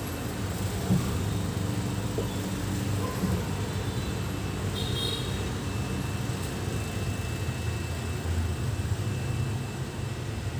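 A steady low rumble, with a brief faint high chirp about five seconds in.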